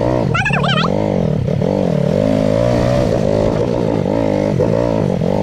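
Dirt bike engine running on a muddy track, its pitch rising and falling over and over as the throttle is opened and eased off.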